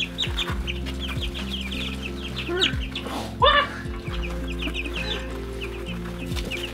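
A brood of young chicks peeping in quick succession, short high chirps that each slide downward, with one louder falling call a little past halfway.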